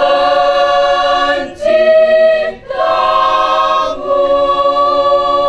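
Mixed choir singing a cappella in long held chords, in four phrases with short breaks between them.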